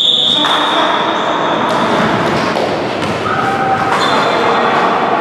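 Echoing din of voices and game noise in an indoor basketball gym during a game, with a high steady tone that carries over from the start and fades out about two seconds in.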